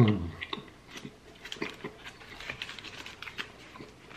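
A person chewing a mouthful of burger with the mouth closed: small, soft, wet clicks. A short hum falls in pitch at the very start.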